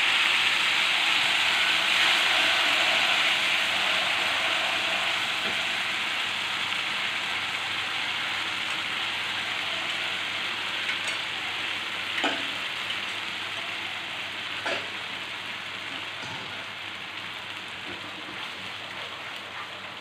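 Brown sauce sizzling as it is poured onto sautéed chopped garlic and onion in a hot frying pan, loudest at the start and slowly dying down as it simmers under a stirring wooden spoon. Two brief knocks around the middle.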